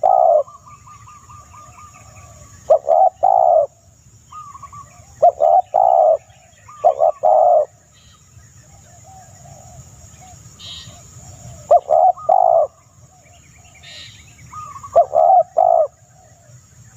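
A dove cooing in short phrases of two or three low notes, repeated every few seconds. A fainter, higher trilling call sounds just after the start.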